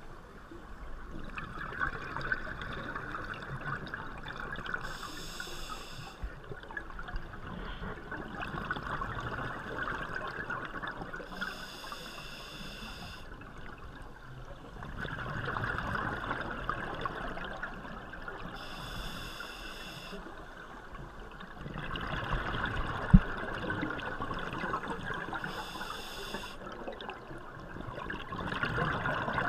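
Scuba diver breathing through a regulator underwater: a short hiss of inhalation about every seven seconds, each followed by a few seconds of bubbling exhalation. One sharp click about three quarters of the way in.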